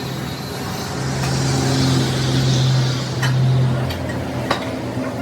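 A motor running with a steady low hum that swells through the middle, then a few sharp taps.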